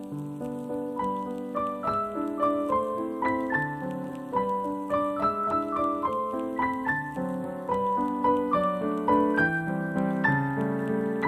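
Background piano music: a flowing run of single notes, changing every fraction of a second, over held lower notes.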